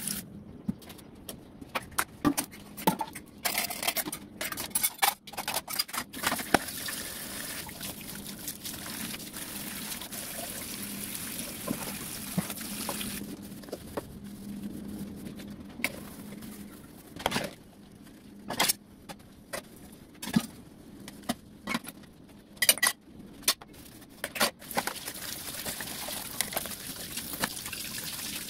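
Dishes being washed under a running tap in a stainless steel sink: the steady sound of running and splashing water, with frequent sharp clinks and clatters of plates and crockery, busiest in the second half.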